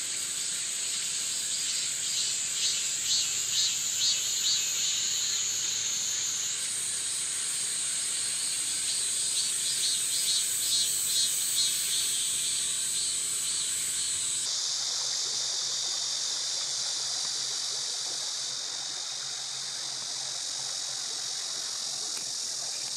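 Steady high-pitched chorus of insects, pulsing a little more than once a second in its first part. The sound changes abruptly twice, after about six seconds and again after about fourteen.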